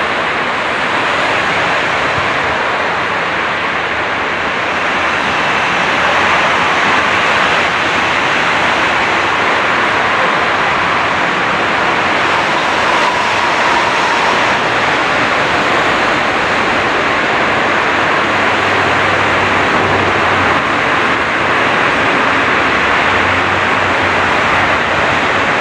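Steady, loud rushing noise of urban transport, with no single event standing out.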